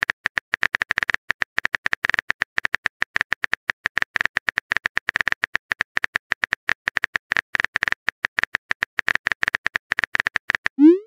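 Simulated phone keyboard typing sound effect: rapid, irregular key clicks, many per second, as a text message is typed out. Near the end, a short rising swoosh as the message is sent.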